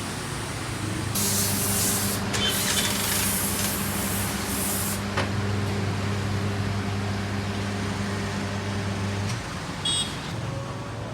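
Air compressor's electric motor humming steadily for about eight seconds, then cutting off suddenly, with loud hissing blasts of compressed air during the first few seconds.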